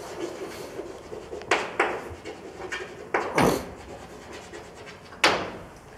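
Chalk scratching and tapping on a blackboard while writing, in a few separate strokes, the strongest about a second and a half in, around three and a half seconds in, and near the end.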